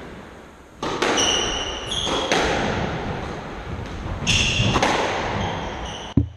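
Squash rally: the ball smacking off racket and walls several times, each hit echoing around the court, with high squeaks from shoes on the sprung wooden floor.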